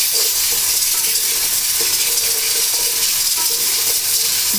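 Hot oil sizzling steadily as fried onions, ginger-garlic paste and green chillies are stirred in a large metal pot with a wooden spoon.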